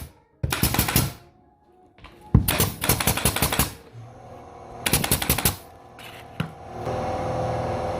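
Three bursts of rapid clacking from a power fastening tool driving fasteners during gypsum board work. A steady hum with a held tone starts near the end.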